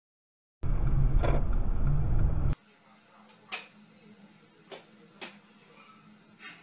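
Rumbling road and engine noise inside a moving car, as picked up by a dashcam microphone, for about two seconds before it cuts off abruptly. A faint hiss with a few faint clicks follows.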